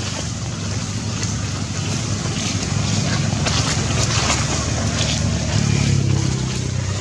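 Low, steady rumble of wind on the microphone, with a low hum underneath that grows louder about five seconds in.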